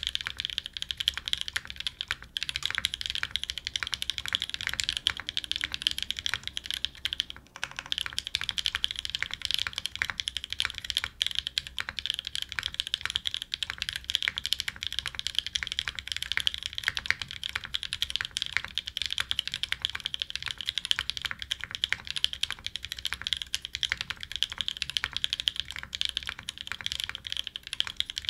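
Rapid, continuous typing on a custom 60% mechanical keyboard with lubed Novelkeys Nolives linear switches in an aluminium plate and GMK keycaps: a dense stream of sharp key strokes, with a brief pause about seven and a half seconds in.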